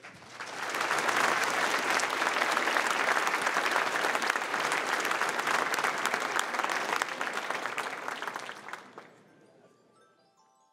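Audience applauding, swelling about half a second in and dying away near the end, where soft mallet-percussion notes begin.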